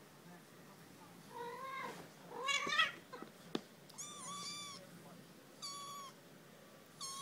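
Tabby kitten mewing: about five high-pitched mews, each under a second long. The second one, about two and a half seconds in, is the loudest.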